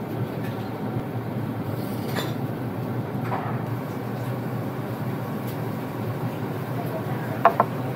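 Steady low rumbling room noise of a small restaurant, with two quick sharp clicks close together near the end.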